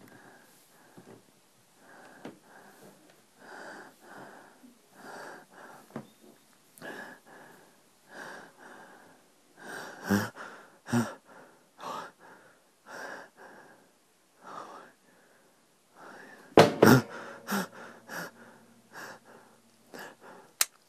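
A person breathing heavily and anxiously, one loud breath about every second. Two sharp knocks come about halfway through, and a louder pair of thumps later is followed by a low ringing tone.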